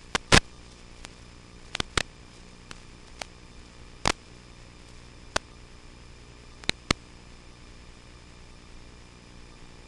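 Steady static hiss from an analog FPV video link, broken by sharp, irregular clicks and pops. The loudest pops come about a third of a second in, as the picture breaks up, and a few more follow every second or two.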